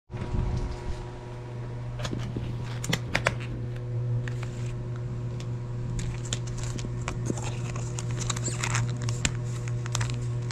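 Clear plastic takeaway food containers being handled and their lids pressed shut by hand, giving scattered sharp plastic clicks and taps, more frequent in the second half, over a steady low hum.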